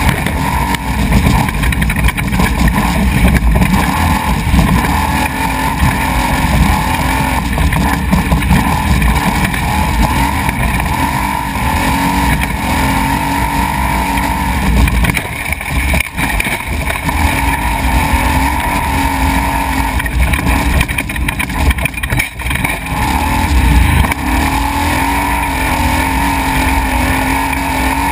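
Desert race truck's engine running hard at speed, heard from a camera mounted on the truck, with a steady engine note over a heavy, uneven rumble from the rocky dirt track. The engine note dips briefly twice in the middle.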